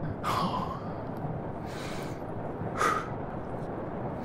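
A person breathing hard: three loud, breathy gasps spread across a few seconds, over a steady low rumble.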